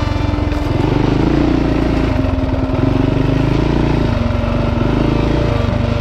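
Dirt bike engine running under load, its note stepping up and down several times as the throttle is opened and closed.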